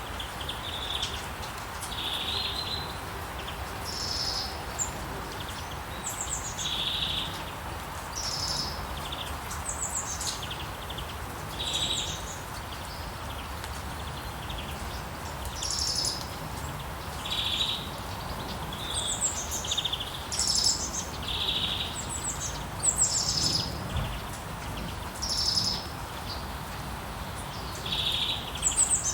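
Songbirds singing in short, repeated chirping phrases, one to two seconds apart, some lower and some higher and trilling, over a steady hiss of rain.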